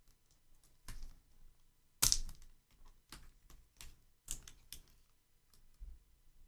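Irregular clicks and taps of fingers handling the laptop's screen panel and plastic housing, about eight in all, the loudest about two seconds in.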